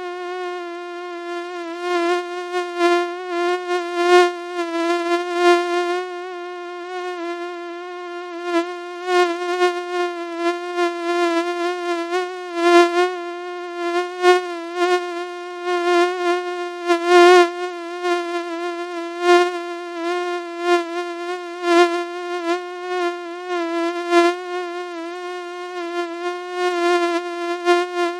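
Continuous mosquito-like buzzing whine, one steady pitch with many overtones, wavering slightly and swelling and dipping in loudness.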